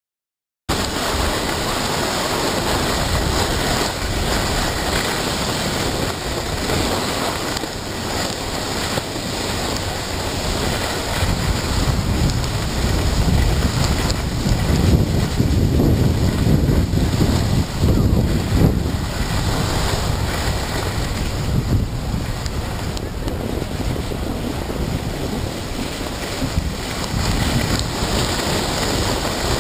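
Wind rushing over the microphone of a camera moving down a ski slope, mixed with the hiss of sliding on snow. It starts abruptly about a second in and the low rumble grows louder in the middle.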